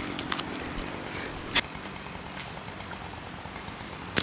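A few sharp knocks from a tree climber working up a dead red oak on climbing spurs, the gaffs biting into the trunk, over a steady outdoor background noise. The loudest knock comes about one and a half seconds in and another near the end.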